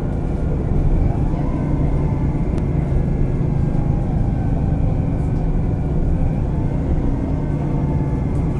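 MAN Lion's City G articulated bus with a ZF Ecolife automatic gearbox, running: a steady low engine drone with a faint whine above it that shifts slightly in pitch.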